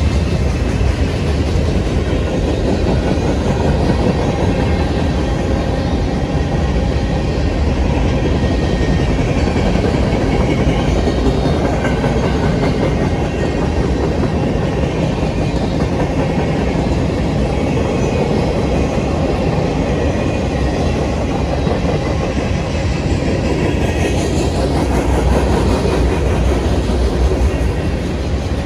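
Freight cars of a mixed manifest train rolling past: a steady, loud rumble of steel wheels on the rails.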